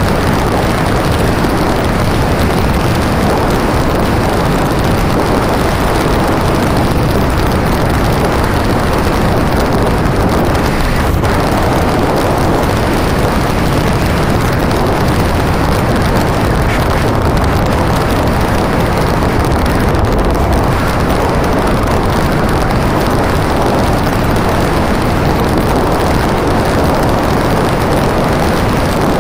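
Motorcycle ridden along a sandy desert track, heard from a helmet-mounted camera: a loud, steady rush of wind over the microphone mixed with the engine's drone.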